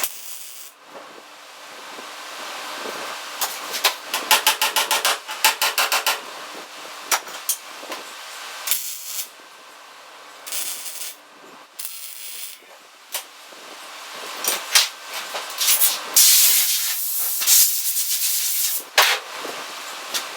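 Wire-feed welder crackling and hissing in a run of short bursts, stitch-welding a sheet-steel patch panel onto a pickup's cab.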